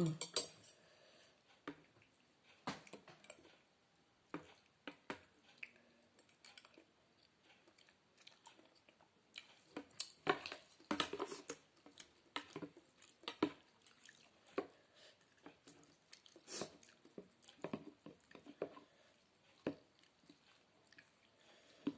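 Close-miked wet chewing and mouth noises of someone eating a soupy noodle dish (sopas made with spaghetti noodles), in short irregular bursts that come thickest near the middle.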